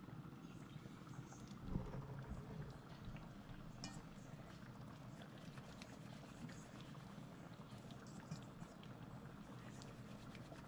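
Quiet kitchen background: a pot of stew peas simmering on the stove, with faint scattered ticks and one short knock about two seconds in.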